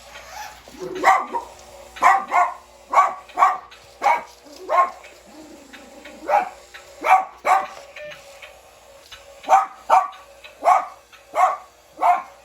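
Small Bichon Frise dog barking in sharp, repeated barks, often two close together, with short pauses between bursts, set off by a remote-control toy.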